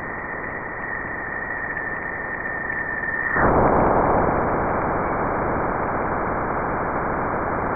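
Sonified Juno Waves electric-field data from the spacecraft's approach to Jupiter: a steady hiss carrying a thin high tone that sinks slightly, the upstream plasma oscillations. About three and a half seconds in, the tone cuts off and the hiss turns abruptly louder and fuller as the data crosses Jupiter's bow shock.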